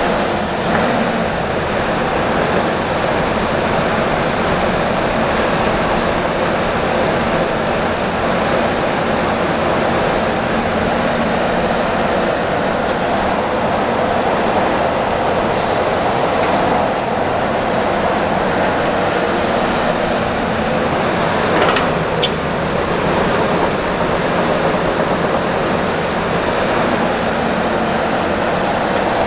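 Heavy excavator diesel engines running steadily under load while digging and loading soil. There is one brief sharp knock about three-quarters of the way through.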